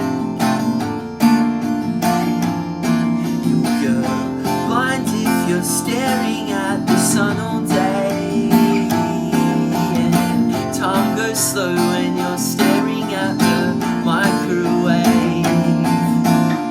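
Acoustic guitar in open D tuning (D A D G B D), capoed at the third fret, strummed steadily with no singing as the song's instrumental ending.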